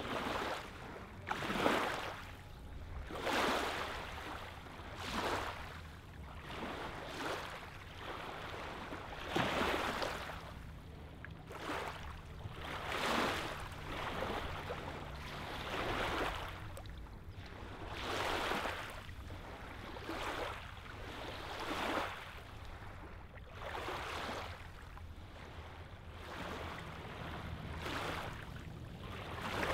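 Small lake wavelets lapping onto a sandy, pebbly shoreline. Each gentle wash swells and fades, one every couple of seconds.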